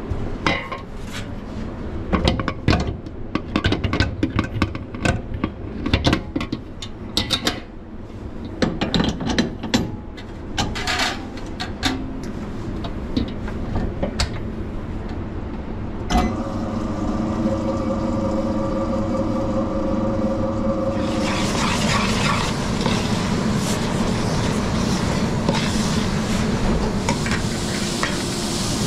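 Stainless steel mixing bowls clanking and knocking as they are handled and the bowl of spätzle batter is fitted into a planetary stand mixer. About 16 s in, the mixer's motor starts with a steady hum, and about 21 s in a steady hiss joins it.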